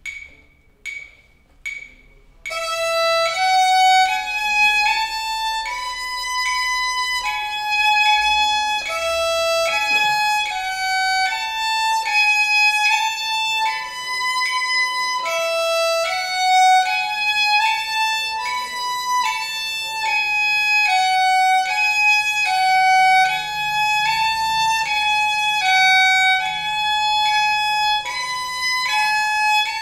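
Solo violin playing a beginner's étude on the E string, one clear note at a time, each held about half a second to a second. A few faint clicks come first, and the playing starts about two seconds in.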